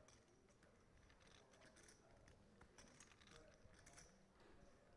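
Near silence, with faint, irregular clicking of poker chips being handled at the table.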